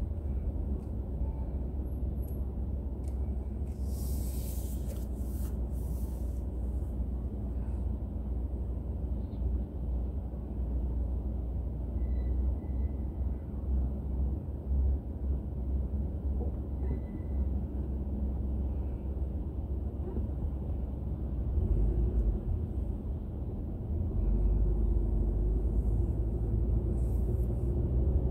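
Steady low road and engine rumble of a car driving, picked up by a dashboard drive recorder. A brief hiss comes about four seconds in, and the rumble grows louder in the last few seconds.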